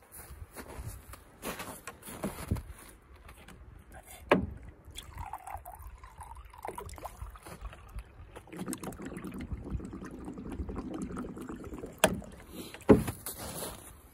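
Water running from the push-button tap of a large plastic water jug into a plastic cup, a steady pour in the second half, with sharp knocks from handling the jug and cup before and after.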